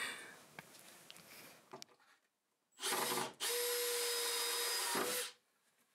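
Power drill running twice: a short burst, then a steady run of about two seconds with a constant motor whine, each stopping abruptly. Faint knocks come just before.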